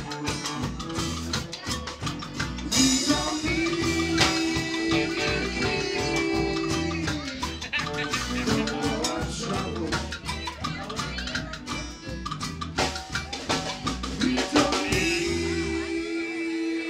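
Live band playing in a bar: a drum kit keeping a steady beat under guitars, with long held notes over the top twice.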